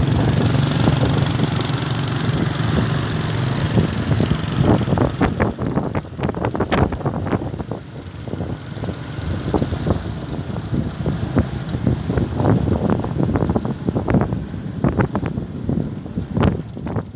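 Small motorcycle engine running while riding, with a hiss of wind on the microphone at first. From about five seconds in, frequent rattling knocks come in over the engine as the bike rides onto a rough dirt road.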